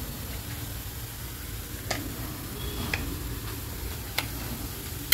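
A few light, sharp clicks of a knife against a steel plate as roasted eggplant is peeled and its soft flesh cut up, over a steady low background hum.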